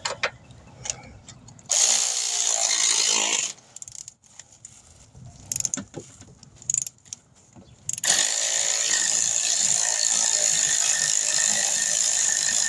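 Power ratchet with a long extension spinning out a lower mounting bolt of a Honda CR-V's AC compressor. It runs in two spells, a short one about two seconds in and a longer one from about eight seconds in, with light metal clicks between.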